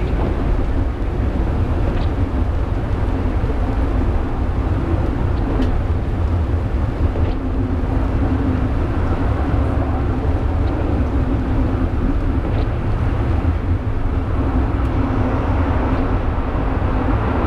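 Penang Hill funicular railway car climbing the track: a steady, low rumble of the car running on the rails with an even hum, and a few faint clicks.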